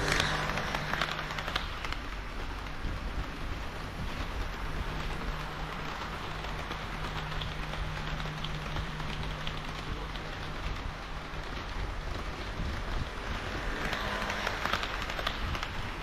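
HO-scale model diesel railcar trains (KiHa 40 and KiHa 58 models) running past on the track: a low steady motor hum with a patter of clicks from the wheels over the rail joints. It swells briefly as a train passes close right at the start and again near the end.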